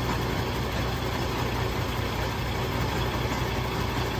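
Engine of a sewage vacuum tanker truck idling steadily, an even low hum that does not change.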